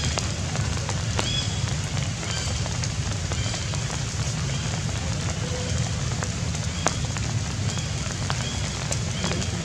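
Steady rain falling, an even hiss with a low rumble, with scattered sharp drop ticks. Faint short high chirps sound about once a second.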